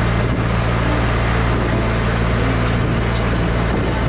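Passenger launch boat's engine running at cruising speed with a steady low drone, over a steady hiss of water and air.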